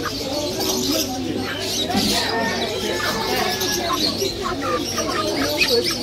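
Many caged birds calling together: high chirps and low cooing, steady and unbroken, over faint background voices.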